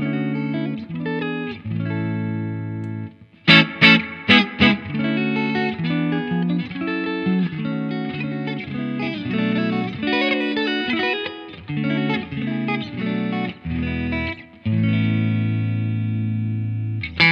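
Electric guitar played clean through a Laney Lionheart Foundry valve combo amp, with strummed chords and picked notes and a brief pause about three seconds in. The amp's EQ is set flat at noon, and its bright switch is off at first, then switched on, adding treble sparkle.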